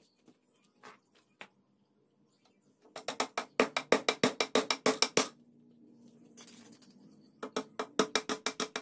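Hammer rapidly driving nails into the wooden shelf slats: two runs of quick sharp blows, about seven a second. The first starts about three seconds in and lasts about two seconds; the second comes near the end.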